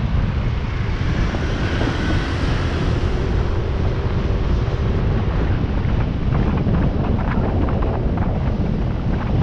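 Wind buffeting the microphone of a moving motorcycle, a steady low rumble, with the bike's engine running faintly underneath.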